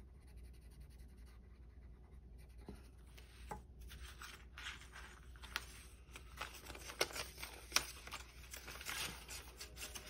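Faint scratching of a coloured pencil on paper, then rustling and crinkling of paper dollar bills being handled, with a few sharp clicks after the middle.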